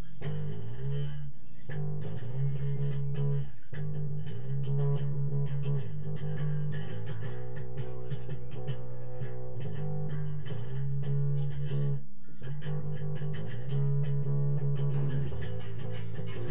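Live improvised band music: a repeating bass line of long held low notes changing about every second, with sustained tones above it.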